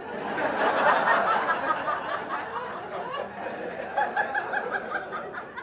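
Comedy club audience laughing at a punchline. The crowd laughter swells in the first second, then slowly dies down, with a few individual chuckles standing out near the end.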